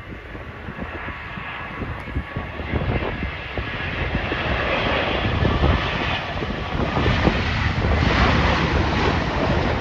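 Twin-engine jet airliner on landing approach with its gear down, its engine noise, a low rumble with a rushing hiss above it, growing steadily louder as it comes closer.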